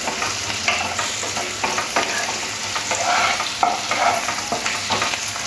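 Onion and capsicum pieces sizzling in hot oil in a kadai while a wooden spatula stirs them, with frequent short scrapes and taps against the pan.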